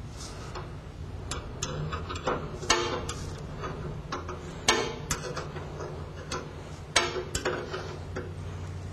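Irregular metal clicks and clinks as the guide roller on a band resaw's blade guide is adjusted, a few of them sharp knocks, over a steady low hum.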